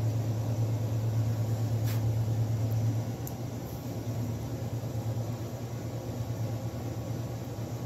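Steady low hum with a constant background hiss, stepping down in level about three seconds in, with a single short click about two seconds in.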